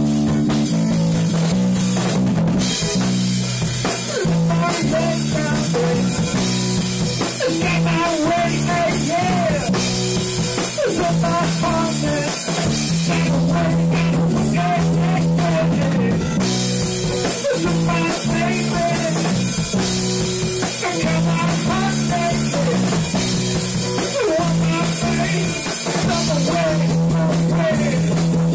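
Rock band playing: drum kit with a steady cymbal wash, held bass notes and a guitar line with bent notes.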